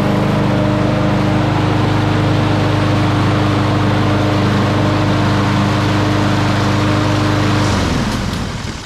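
Kohler XT675 single-cylinder engine on a Poulan Pro push mower running steadily just after it was pull-started. This is the first run of a mower that came in as a non-starter, after a spark plug change, carburetor cleaning and fresh gas. Near the end the engine is shut off and winds down.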